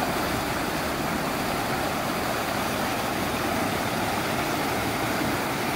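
Shallow river rapids rushing over rock ledges: a steady, even wash of white water.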